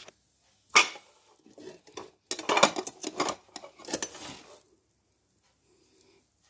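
Plates and bowls clinking and clattering against each other as they are handled and taken out of a bag. There is one sharp clatter about a second in, then a run of knocks and clinks from about two to four and a half seconds in.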